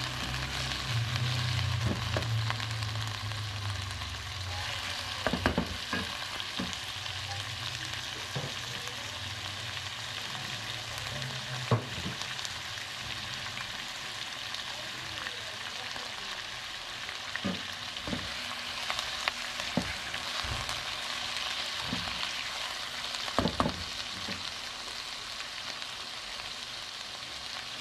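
Chicken gizzards sizzling steadily as they fry in hot oil in a non-stick pan, with a few short clicks of a spatula against the pan as they are stirred.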